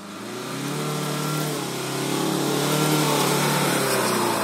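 Tata Safari Storme 400 VARICOR's 2.2-litre diesel engine working hard at steady revs as the SUV pushes through soft sand, growing louder as it comes closer.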